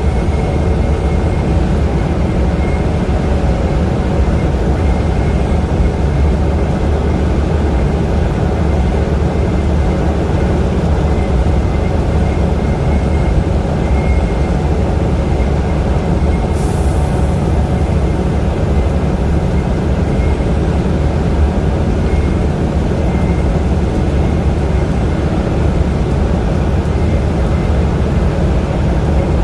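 Steady engine and road noise from a vehicle driving on an interstate highway, with a brief high hiss about halfway through.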